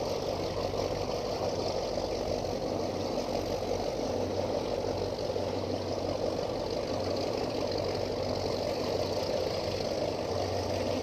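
A cabin cruiser's motors running steadily at idle speed as the boat moves slowly ahead.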